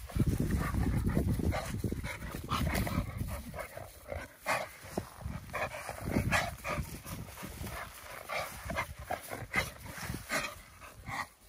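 Merle American bully puppies making short excited yips, many brief calls in quick succession, over a low rumble in the first few seconds.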